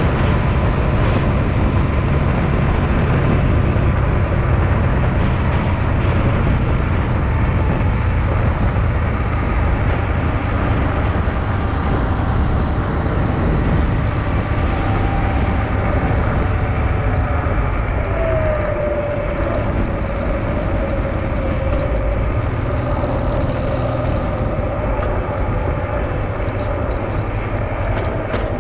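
Honda Transalp XL650V's V-twin engine running steadily on the move, mixed with dense wind noise over the microphone. A faint tone in the engine sound drifts slowly down in pitch past the middle.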